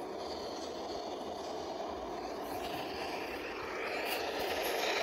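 SEPTA Broad Street Line subway train approaching through the tunnel: a steady rumble that grows louder over the last second and a half, with a rising rattling hiss from the wheels and track.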